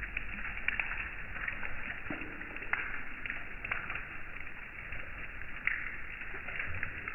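Light rain pattering as a steady hiss, with scattered louder drops landing close by as sharp little ticks.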